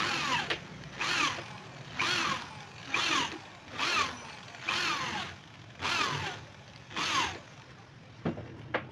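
Cordless drill driving screws into the MDF frame to fasten the mirror clips, in short trigger bursts about once a second, each whine falling in pitch as the motor spins down. Two sharp clicks near the end.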